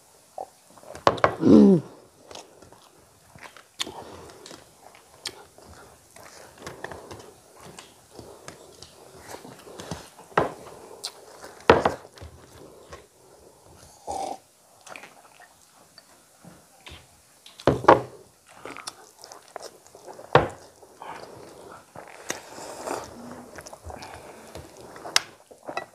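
Close-up eating sounds of two people eating chicken curry and rice by hand: chewing, lip smacks and bites, with scattered sharp clicks and a few louder mouth sounds.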